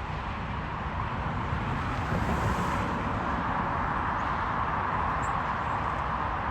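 Jet airliner with Rolls-Royce engines passing, a steady jet roar over a low rumble, growing a little louder in the first couple of seconds and then holding.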